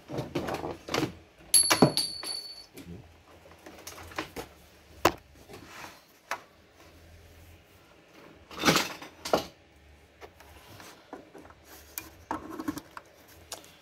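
Clicks, knocks and rustles of a mains power cord and its plug being handled at the back of a computer power supply, with louder knocks about two, five and nine seconds in.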